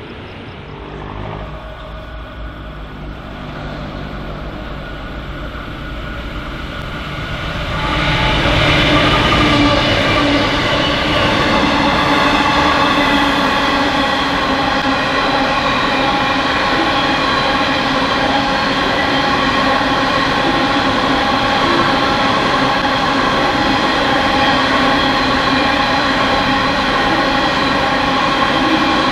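An empty coal train hauled by diesel locomotives approaching and growing louder. From about eight seconds in, its empty coal hopper wagons roll past at speed with a loud, steady rolling noise and a constant whine from the wheels.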